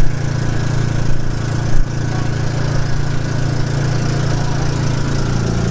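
Engine of a motorized outrigger boat (bangka) running steadily under way, a constant low drone, with a brief thump a little under two seconds in.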